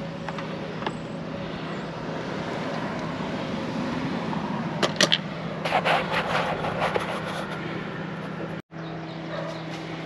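Handling noise: sharp clicks and clatters, mostly in a cluster about five to seven seconds in, over a steady low background hum.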